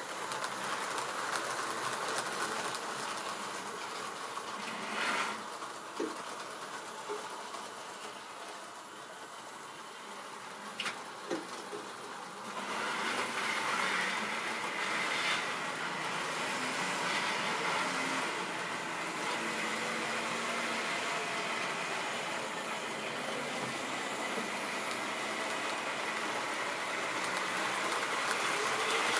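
Model railway trains running on the layout: the steady whirr of small electric locomotive motors and wheels on the track. A few sharp clicks come in the first half, and the running gets louder, with a steady whine, after about twelve seconds.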